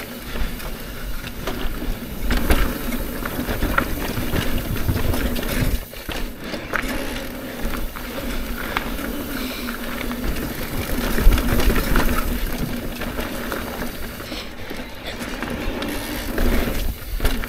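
Electric mountain bike riding fast down a dirt trail: wind rumbling on the microphone, tyres rolling, and the bike rattling and knocking over bumps, over a steady hum from the Trek Rail's drive motor.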